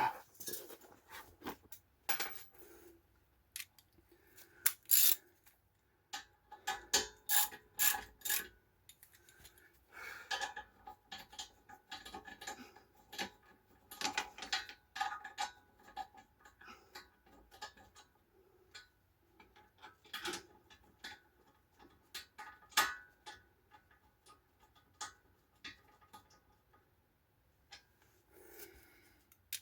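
Hand ratchet wrench clicking in short runs as bolts are turned, with scattered clinks and knocks of tools and metal parts.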